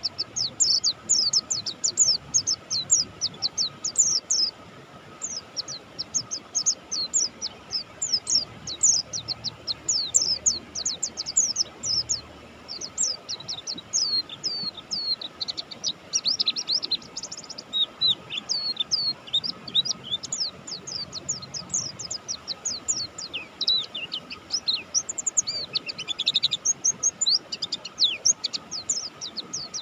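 Pleci buxtoni white-eye singing hard without a break: a rapid stream of high, thin chirps, most sliding quickly downward, several a second.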